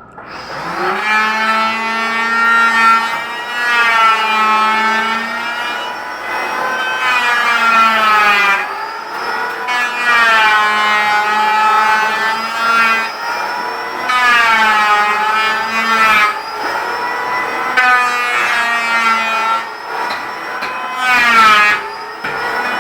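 Electric power tool motor running while cutting wood: a steady whine whose pitch sags and recovers every few seconds as the cutter is loaded and eased off, with short breaks between passes.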